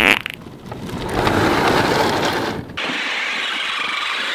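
Nerf Terrascout remote-controlled tank's electric drive motors and plastic tracks running as it drives over the ground. The noise dips briefly about two and a half seconds in, then carries on thinner in the bass.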